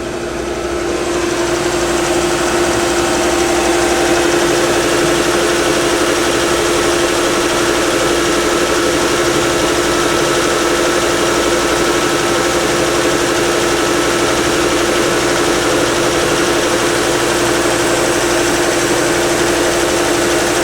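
Myford MG12-M cylindrical grinder running, its 3 horsepower spindle motor turning the 12-inch grinding wheel: a steady machine hum with one strong steady tone. It grows louder over the first couple of seconds, then holds even.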